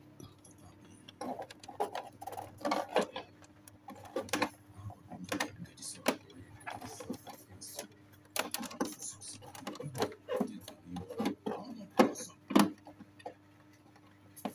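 Irregular clicks, taps and rattles of an antenna coaxial cable and its plug being handled and pushed into the antenna socket at the back of a TV, with a sharper knock about twelve seconds in, over a faint steady hum.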